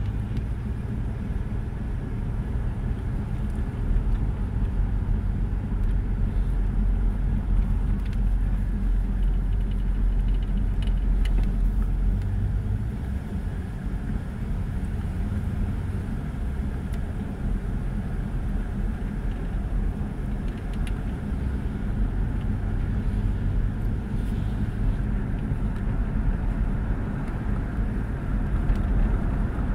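Car engine running at low speed with tyre and road noise, heard from inside the cabin as a steady low rumble.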